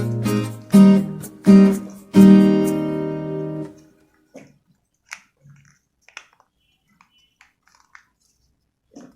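Strummed acoustic guitar music, a few chords that ring out and end about four seconds in. Only faint scattered clicks and small rustles follow.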